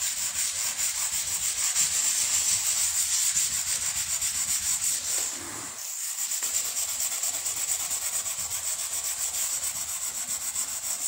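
A green scouring pad scrubbing dried paint off a hardwood floor in quick back-and-forth strokes, a dry rhythmic scratching. The strokes ease off for a moment about halfway through, then resume.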